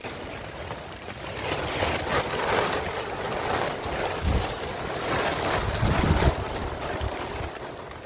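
Large plastic sheet rustling and crackling in surges as it is pulled and spread out, with wind gusts buffeting the microphone in deep thumps about four and six seconds in.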